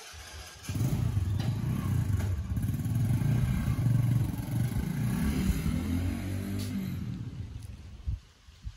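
Motorcycle engine running and revving, its pitch rising and falling, then fading away near the end as the bike rides off.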